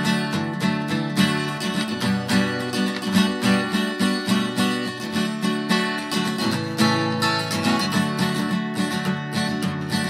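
Background music: strummed acoustic guitar playing steadily.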